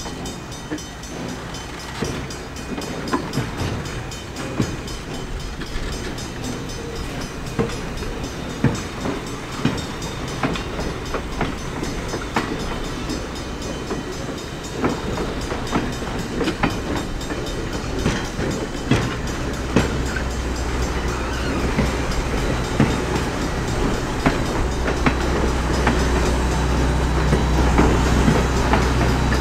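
Passenger train rolling along the track, its wheels clicking irregularly over rail joints, slowly growing louder, with a steady low rumble joining about two-thirds of the way in.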